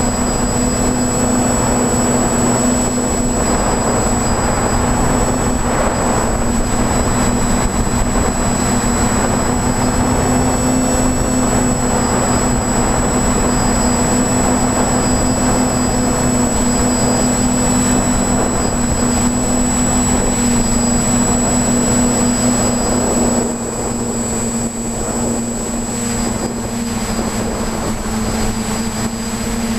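TBS Discovery Pro quadcopter's electric motors and propellers whining steadily, as heard by the camera on board in flight. A little over three-quarters of the way through, the sound drops slightly in level and its pitch shifts a touch.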